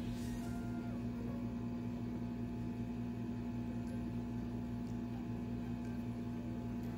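Steady low electrical mains hum with no other sound.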